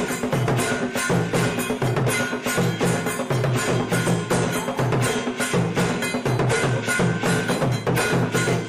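Background music with a quick, even percussive beat of sharp knocking strikes over a repeating low melodic figure.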